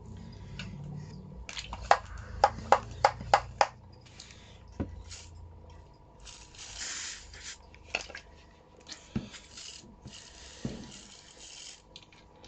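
Hand spray bottle misting water into a scorpion enclosure: a quick run of about six sharp trigger pumps, then several longer hissing sprays of about a second each.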